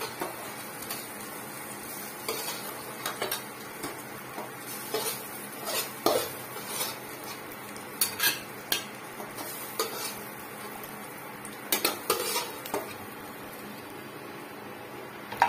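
Metal spatula scraping and clinking against a frying pan at irregular intervals as fried bottle-gourd fritters are lifted out, over a steady sizzle of hot mustard oil.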